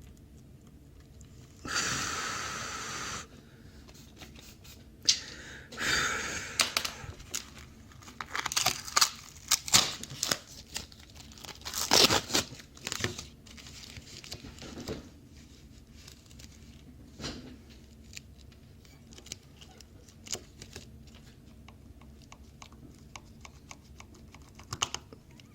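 Bench work on a car-alarm circuit board as a relay is taken off it: a hiss lasting about a second and a half near the start and a shorter one about six seconds in, then sharp clicks, taps and rustling, busiest in the middle and thinning out towards the end.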